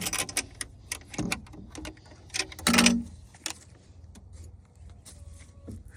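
Wire rabbit hutch being handled, its door and latch rattling and clicking, with a louder clatter about three seconds in.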